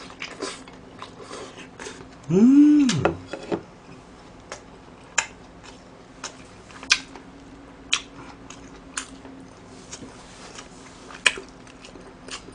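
Close-miked chewing with wet mouth smacks and sharp clicks. About two seconds in comes one short hummed 'mmm' that rises and then falls in pitch.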